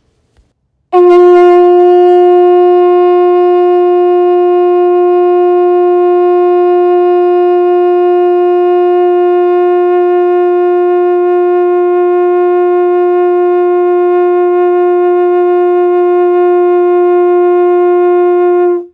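Conch shell trumpet blown in one long, steady note, held for about eighteen seconds. It starts about a second in and cuts off sharply near the end.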